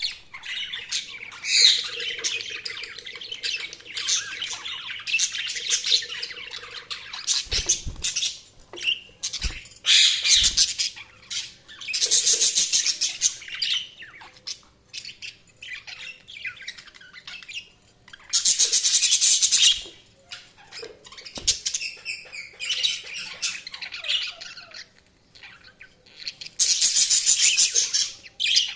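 Budgies chirping and warbling continually, broken three times by harsh, buzzy squawking that lasts about two seconds each time. A few low thumps come through in the middle.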